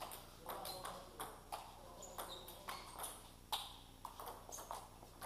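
Table tennis rally: a celluloid ball clicking on the table and bats in an irregular run of sharp taps, about two to three a second, with more taps from neighbouring tables ringing in a large hall.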